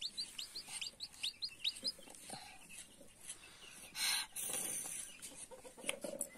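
Newly hatched chick peeping: a run of short, high, falling peeps, several a second at first and sparser later, with a brief rustle about four seconds in.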